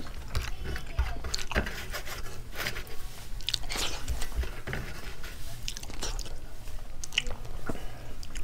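A person chewing food close to the microphone, in irregular mouth sounds, while eating rice and curry by hand from a steel plate, fingers working the food against the plate.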